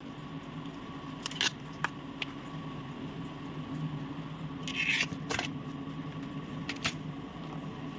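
Banana flower florets being pulled from the bracts and handled by hand: a few scattered small crisp snaps and a brief rustle, over a steady low background hum.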